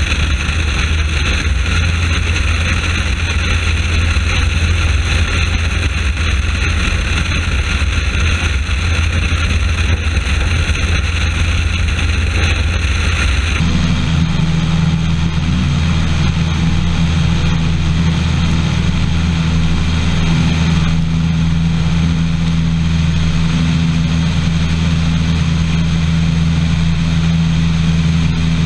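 WW1 replica biplane's engine running steadily in flight, a loud constant drone mixed with airflow rush. The tone changes abruptly about halfway through, to a more pronounced steady hum.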